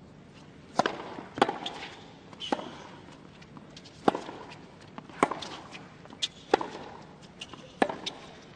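Tennis rally on a hard court: a serve and then racket strokes on the ball, about seven sharp pops a second or so apart, with fainter knocks of the ball between them.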